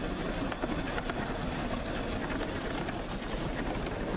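Narrow-gauge steam train passing close by: the small locomotive and its carriages running steadily over the rails.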